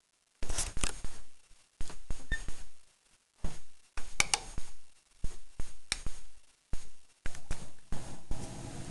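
Handling noise from a handheld camera being carried through rooms: irregular knocks and scuffs every half second to a second, with dead silence between. A steady low hum starts near the end.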